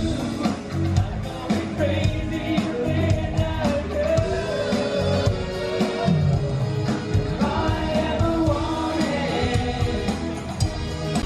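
Live pop band playing amplified music with sung vocals over a steady drum-kit beat.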